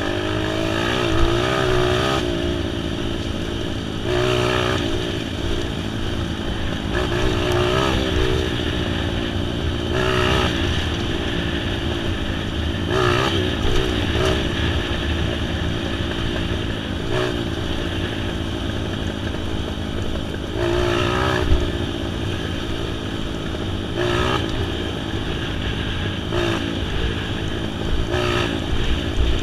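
Engine of a vehicle driven on a gravel forest track, running continuously with its pitch rising and falling in repeated short surges as the throttle is worked.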